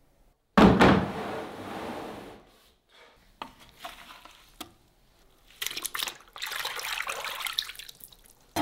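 Water splashing and sloshing in a bucket of sliced raw potatoes: a sudden loud splash about half a second in that fades over a couple of seconds, a few light knocks, then a hand swishing the slices around in the water near the end.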